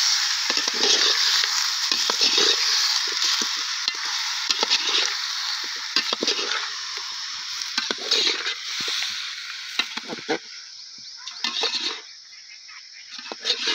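Chicken pieces sizzling as they fry in a metal pot, stirred with a spoon that scrapes and knocks against the pot again and again. The sizzle thins out and quietens about ten seconds in.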